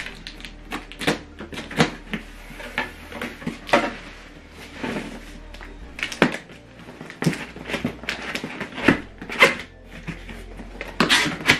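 Large cardboard soundbar box being handled: irregular knocks, scrapes and thumps of cardboard as it is gripped and shifted by hand, the loudest thumps about six, nine and eleven seconds in.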